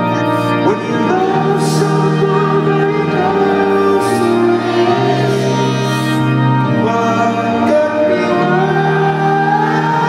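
Live band music in an arena: sustained organ chords with a male lead vocal singing over them.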